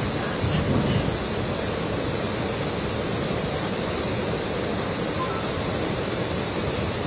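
Waterfall on the flooded Ghataprabha River: a steady rush of falling water, with the river running above its danger level.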